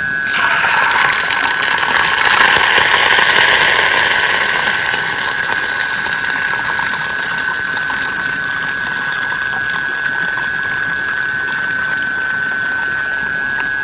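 Heavy rain and wind surging about half a second in, loudest for a couple of seconds, then easing back to a steady downpour. A steady high-pitched whine runs underneath throughout.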